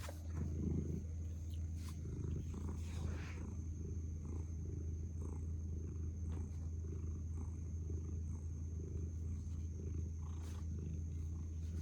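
A sleeping munchkin cat snoring with a steady low rumble.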